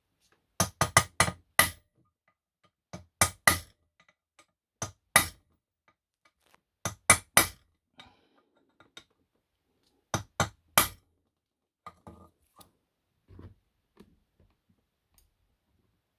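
Claw hammer striking a steel punch against the aluminium crankcase around a scooter engine's bearing seat, in quick sets of two to five sharp blows with pauses between, the last few fainter. The punch marks raise metal around the bore to tighten the seat on a loose-fitting bearing.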